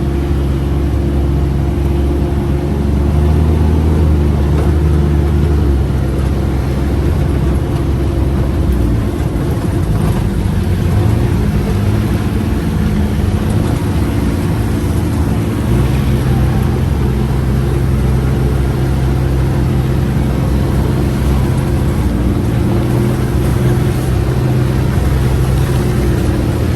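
UTV engine running while the vehicle is driven, its note stepping up and down a few times as the throttle changes.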